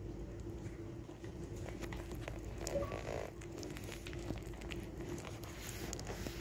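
Rabbit chewing banana close to the microphone: many quick small wet clicks and smacks, over a faint steady hum, with one louder brief noise about three seconds in.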